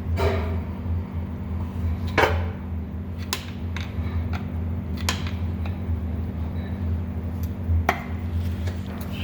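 Metal clinks and knocks of a prying tool working at an engine's oil pan to break it loose, a few separate sharp strikes about a second or two apart, over a steady low hum.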